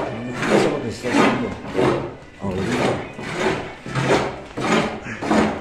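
Steady rhythmic scraping, a stroke about every two-thirds of a second, like a rasp or saw working back and forth.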